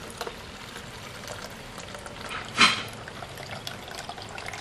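Water collected in a diesel fuel water separator draining through its drain tube into a plastic bottle, a steady trickle with small crackles. One short, louder noise comes about halfway through.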